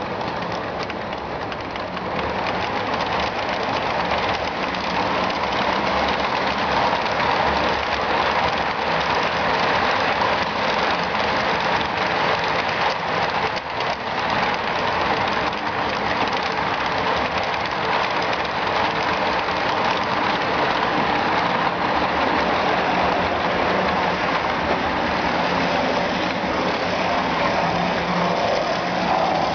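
HO-scale model train running on the layout: steady whir of locomotive motors and wheels rolling along the rails.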